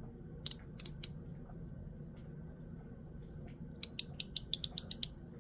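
A YEDC Mechanical Pig Slider fidget being slid, its detents snapping: three sharp clicks about half a second in, then a quick run of clicks near the end. The clicks are strong and poppy.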